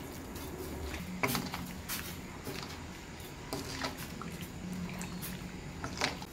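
Metal ladle stirring broth in a stainless steel pan, clinking and knocking against the pan several times, most sharply about a second in and again near the end.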